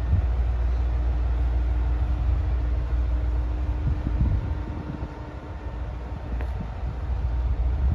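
ET122 diesel railcar's engine running, a steady low rumble with a faint hum over it; it drops off for a couple of seconds about five seconds in, then comes back up.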